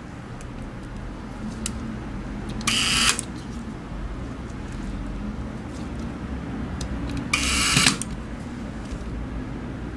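Precision electric screwdriver with a torque clutch driving small screws, twice: a faint motor hum, then a short rattling burst as the clutch clicks out at the set torque, about three seconds in and again near the end.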